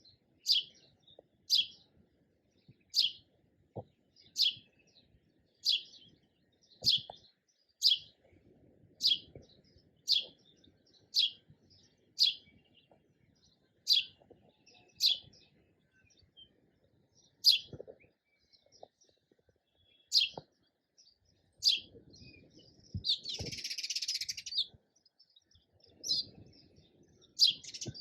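Sparrow chirping: single short, high chirps repeated about once a second, with a rapid two-second chatter a little past two-thirds through.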